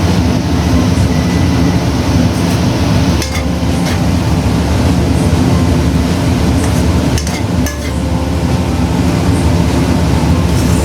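A steady, loud mechanical drone with a low hum, with a few sharp clinks of utensils against dishes about three and seven seconds in.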